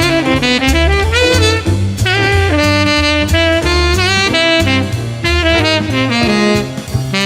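Instrumental music with a melodic lead line over bass notes and a steady drum beat, in a jazz style.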